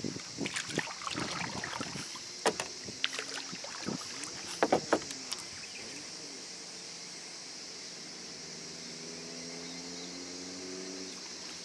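A kayak being paddled: paddle strokes splash and knock against the plastic hull for the first half, then fall away. A faint steady hum sits under a hiss near the end.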